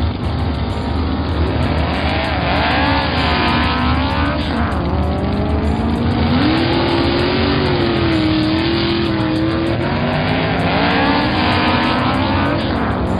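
Racing car engines running hard at high revs, their pitch rising and falling several times as they accelerate and shift, over a steady rushing noise.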